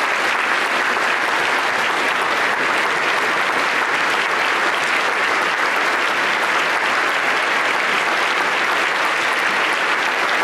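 A large audience applauding steadily, one long unbroken round of clapping.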